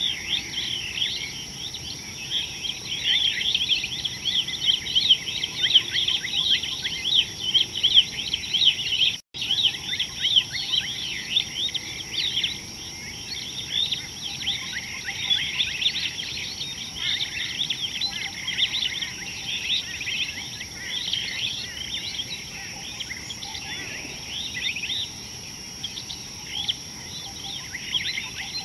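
Many small birds chirping together in a dense, busy chatter of short, quick calls, with a steady high-pitched insect drone underneath. The sound cuts out for an instant about nine seconds in.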